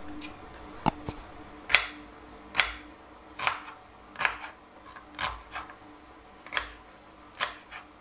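Kitchen knife slicing through a red onion on a wooden chopping board, about one cut a second, each a short crisp crunch ending in a tap of the blade on the board.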